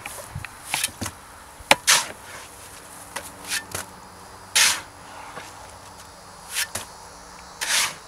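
A shovel scraping and scooping wet concrete mix in a wheelbarrow: short scrapes at irregular intervals, about one a second, with a sharp knock of the blade about two seconds in.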